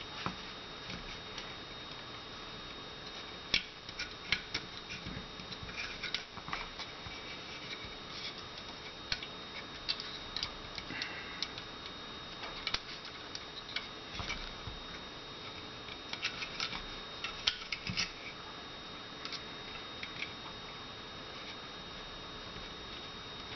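Small, irregular clicks and scrapes as a flattened paper-clip tool is worked against the takedown lever and its spring inside a Beretta PX4 Storm Compact pistol frame, with the frame handled and turned in the hands. A faint steady hum runs underneath.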